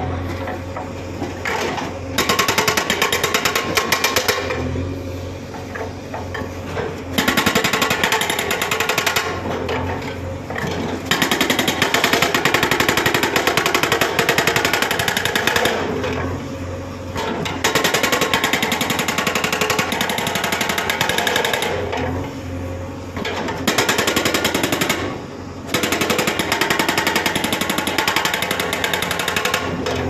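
Hydraulic rock breaker on a JCB 3DX backhoe loader hammering into a concrete surface with rapid, evenly spaced blows. It goes in runs of a few seconds broken by short pauses, during which the machine's engine keeps running.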